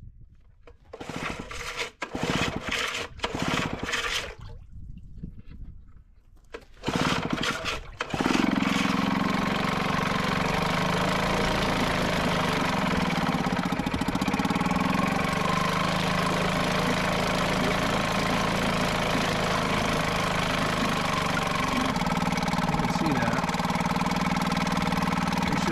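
Johnson Colt two-horse two-stroke outboard being started in a test barrel: a few short bursts of cranking and coughing, then it catches about eight seconds in and runs steadily, its propeller churning the water. This is the first run after a new water pump and head, testing that cooling water comes out.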